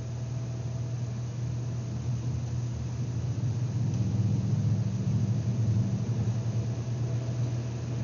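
A steady low mechanical hum that grows louder for a couple of seconds about four seconds in, when a second, slightly higher hum joins it before fading back.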